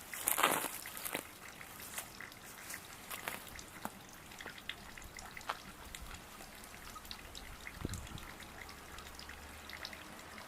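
Water trickling and dripping in a small garden waterfall, with many light scattered drips and ticks, and a brief rustle about half a second in.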